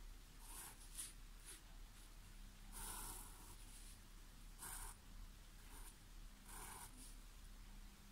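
Graphite pencil drawing short straight lines on paper: a faint scratch with each stroke, several strokes with short pauses between them.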